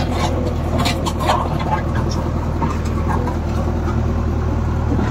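JCB 3DX backhoe loader's diesel engine running steadily, heard from inside the cab, with a few sharp rattles and clicks in the first three seconds.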